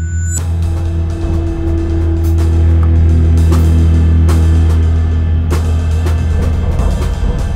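Free, experimental jazz: drum kit with cymbals comes in suddenly about half a second in and plays loose, irregular hits over a held low drone.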